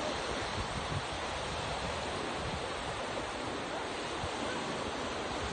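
Ocean waves washing on the shore, a steady rush of surf, with some wind buffeting the microphone.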